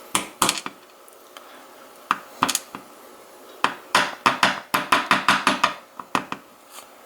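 Sharp metallic clicks and taps of small tools working pins out of a Mul-T-Lock pin-in-pin cylinder: a few scattered clicks, then a quick run of about five taps a second from about three and a half to six seconds in, then two more clicks.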